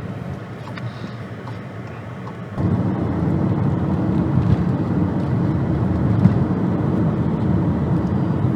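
Car driving along a road: a steady rumble of engine and road noise, which jumps louder about two and a half seconds in and stays there.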